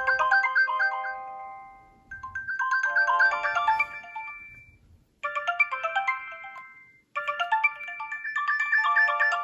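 Nokia 3300b ringtone playing: a synthesized melody with several notes sounding at once. It comes in short phrases that fade out and start again about two, five and seven seconds in.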